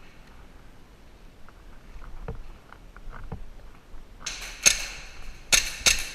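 Airsoft gun firing: three sharp shots in the last two seconds, the first after a short rush of noise. They follow a few faint knocks.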